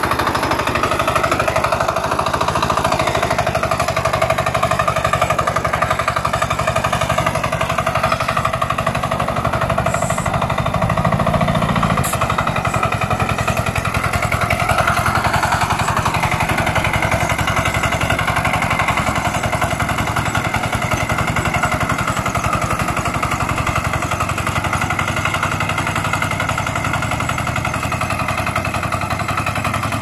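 Kuliglig hand tractor's single-cylinder engine running steadily with a rapid chugging while it tills wet, muddy soil.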